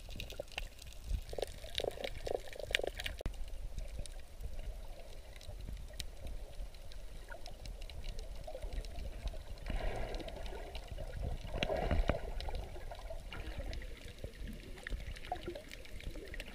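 Water heard through a snorkeler's camera held underwater: a low rumble with gurgling surges a second or so in and again around ten to twelve seconds in, and scattered sharp clicks.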